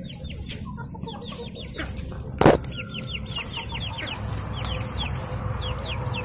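Young chickens peeping, a steady run of short high calls that fall in pitch, with one sharp loud knock about two and a half seconds in.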